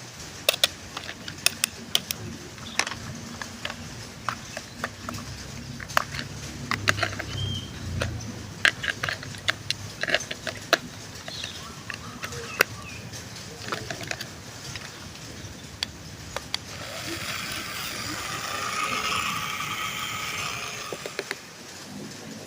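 Hard plastic toy handled: scattered clicks, knocks and rattles. About seventeen seconds in, a small electric toy motor whirs for about four seconds.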